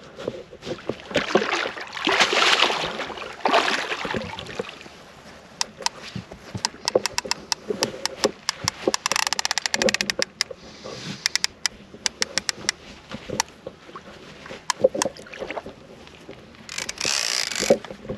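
Multiplier fishing reel clicking in quick runs while a hooked catfish is played on a bent rod, between swishes of moving water and clothing.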